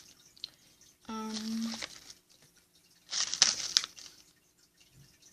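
A snack bag of crunchy coconut chips crinkling as it is handled, in a short rustling burst about three seconds in. It follows a brief hummed vocal sound about a second in.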